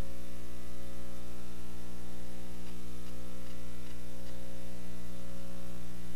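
Steady electrical mains hum with a dense stack of overtones, with a few faint ticks about three to four seconds in.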